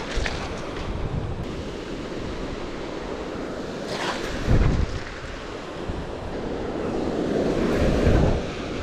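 Small waves breaking and washing up a gravel beach, with wind buffeting the microphone. Louder surges come about four and a half seconds in and again near the end.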